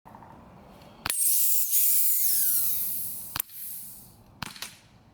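A BB gun shot punctures an aerosol spray paint can, and the pressurised can hisses loudly as its propellant sprays out, with a falling whistle; the hiss dies away over about two seconds. More sharp shot cracks follow near the end.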